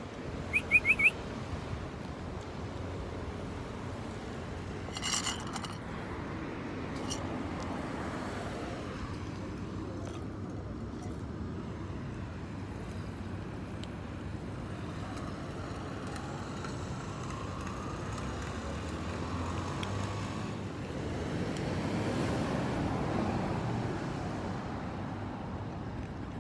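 Steady outdoor road traffic noise, swelling for a few seconds near the end. A quick run of four short high chirps about a second in is the loudest sound.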